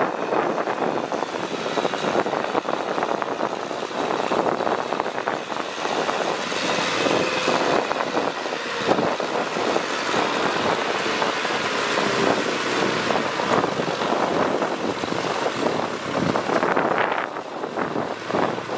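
Kubota diesel tractor running steadily under load as it tills a flooded rice paddy, its rear rotary tiller churning through wet mud.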